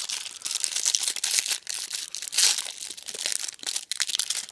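A foil trading-card pack wrapper crinkling and tearing as it is pulled open by hand, in a dense run of irregular crackles.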